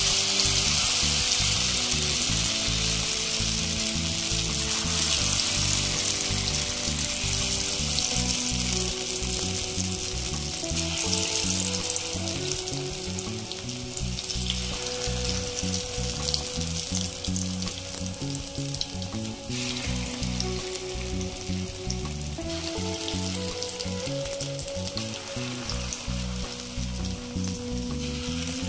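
Lentil-batter pakoras deep-frying in hot oil in a kadai: a dense, steady sizzle, easing slightly in loudness as the fritters cook.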